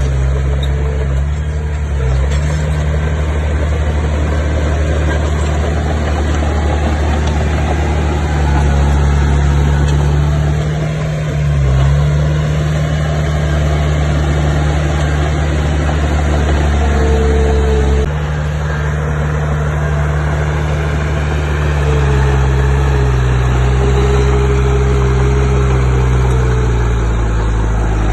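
Bulldozer's diesel engine running steadily, its note dipping briefly and shifting pitch several times as the load changes.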